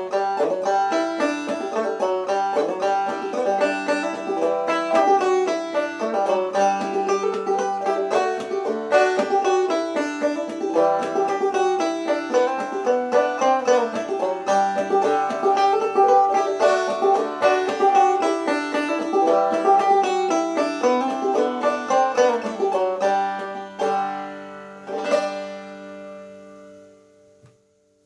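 Open-back banjo with a tubaphone tone ring (a Pilgrim Morning Star) played clawhammer style in gDGDE tuning, a steady run of plucked and brushed notes. Near the end it closes on two struck chords that ring out and fade away.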